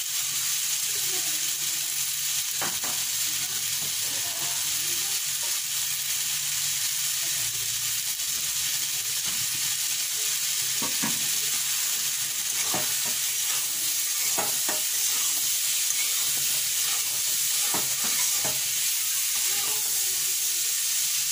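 Ridge gourd and potato pieces sizzling steadily in hot oil in a metal kadai. A flat metal spatula clicks and scrapes against the pan a handful of times as they are stirred, mostly in the second half.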